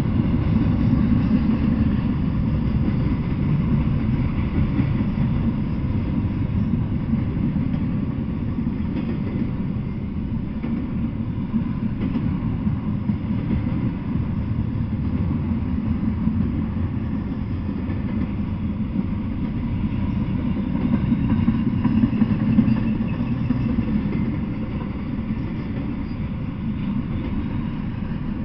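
Double-stack intermodal freight train rolling past: a steady low rumble of steel wheels on the rails, swelling and easing slightly as the cars go by.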